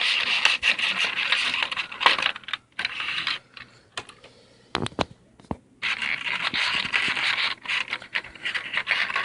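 Scratchy rustling and scraping of earphones and their packaging being handled close to the phone's microphone, with a quieter stretch about halfway through broken by a few sharp clicks.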